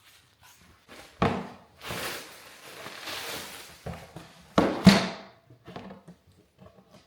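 Flooring boards for stair treads being handled: two thumps about three and a half seconds apart, the second the louder, with a scraping rustle between them.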